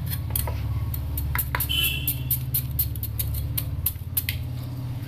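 Kitchen knife chopping a hand-held chow chow (chayote) into small pieces over a plate, a quick irregular string of sharp clicks and taps. A steady low hum runs underneath.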